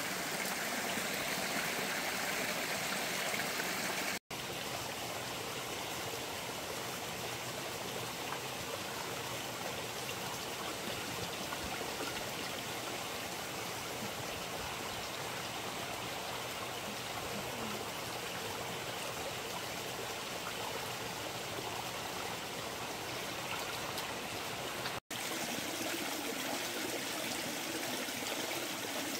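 Running water flowing steadily, like a stream, with a constant rushing hiss. It is cut twice by a split-second drop-out.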